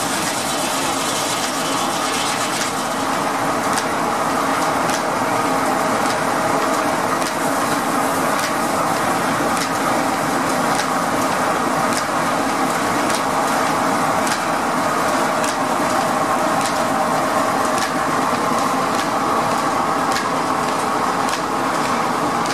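Sawmill machinery driven by a one-cylinder steam engine running steadily: the large circular saw blade spinning and the flat drive belts turning over their pulleys, a continuous mechanical whir with a light tick about once a second.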